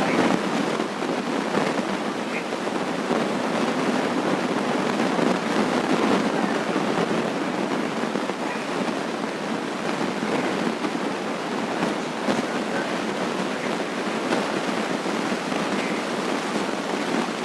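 Loud, steady crackling noise that sounds like heavy rain, though the uploader says no rain was falling.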